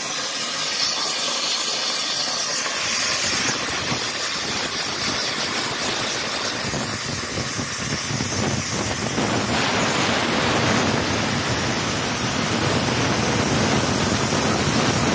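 Everlast Power Plasma 82i plasma torch cutting half-inch steel plate on a CNC table, running flat out at 80 amps: a continuous hiss of the arc and its air blast, growing a little louder and fuller a few seconds in.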